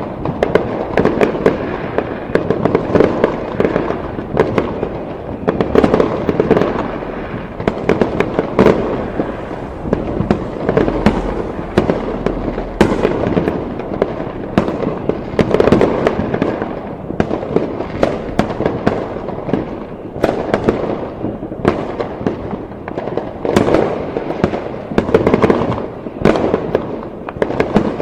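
Fireworks going off in a dense, continuous barrage: many overlapping bangs and crackles with a rumbling echo, and no break.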